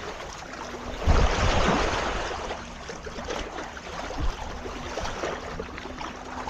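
Lake water washing against the bank, with one louder surge of a wave about a second in that slowly falls away.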